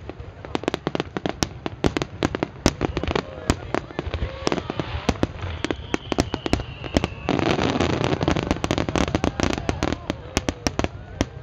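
Star mine fireworks barrage: rapid, overlapping bangs of aerial shells bursting, many in quick succession. About seven seconds in it swells into a louder, denser stretch of crackling for a couple of seconds before thinning back to separate bangs.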